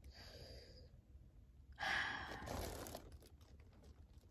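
A boy sighing: a faint breath near the start, then a longer, louder breathy exhale about two seconds in that lasts about a second.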